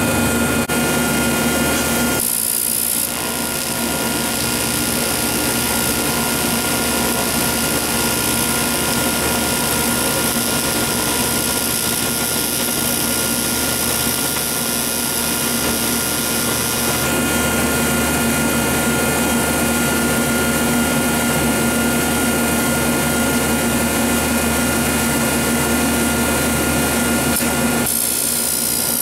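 TIG (heliarc) welding arc on aluminum, buzzing steadily with a hiss through the final weld pass. A short high hiss breaks in about two seconds in and again near the end.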